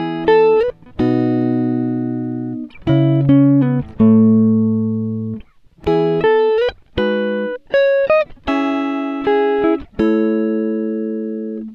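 Background music: a slow melody of notes and chords, each starting loud and then fading.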